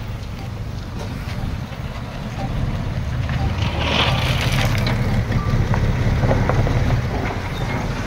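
Heavy diesel engine of earthmoving machinery running, growing louder about two and a half seconds in. A short hiss comes about four seconds in.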